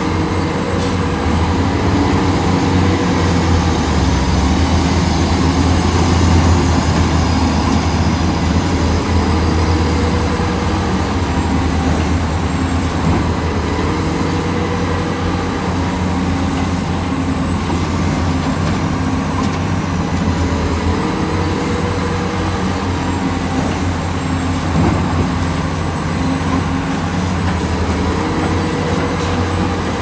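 Heavy diesel engine of construction machinery running steadily, its pitch stepping up and down every few seconds as the load changes.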